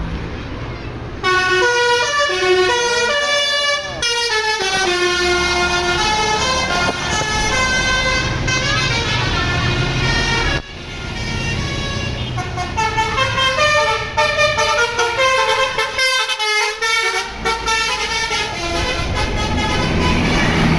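Telolet multi-tone bus horns playing quick melodies of stepped notes as two buses pass one after the other: the first starts about a second in and breaks off sharply near the middle, and the second follows straight after, all over the rumble of the bus engines.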